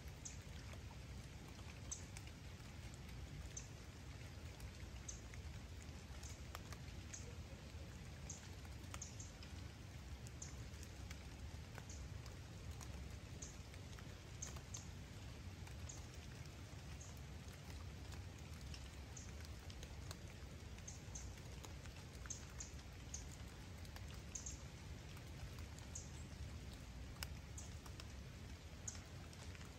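Rain falling: a faint, steady hiss with scattered sharp drops, a couple each second.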